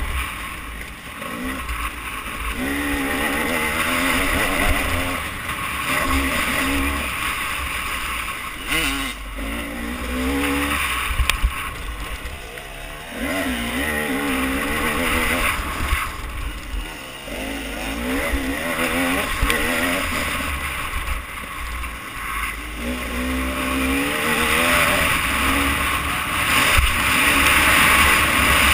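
Motocross bike engine revving up and falling back again and again as the rider accelerates and shifts through the gears, over heavy wind rush and buffeting on the helmet-mounted microphone.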